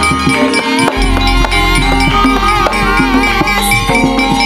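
Javanese gamelan ensemble playing: many struck, ringing bronze keyed instruments, with a deep low tone coming in about a second in.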